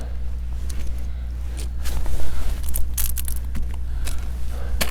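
Log splitter's small gasoline engine running at a steady speed, with a few light clicks and knocks over it.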